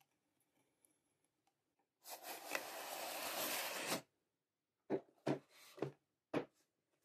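Plastic shrink-wrap being pulled off a cardboard model-kit box: about two seconds of rustling, then four short knocks as the box is handled and set down on a wooden table.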